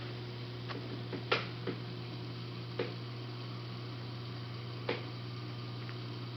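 Steady low hum of running aquarium equipment, with a handful of short sharp clicks over the first five seconds, the loudest just over a second in.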